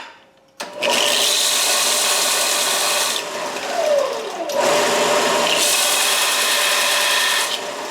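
Belt sander starting up about half a second in, then running while a steel part is held against the belt. There is a grinding hiss that fades for a couple of seconds in the middle and again near the end as the contact eases.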